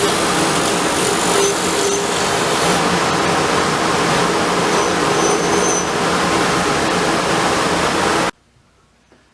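Steady, loud noise of a woodworking machine running, cut off abruptly about a second before the end.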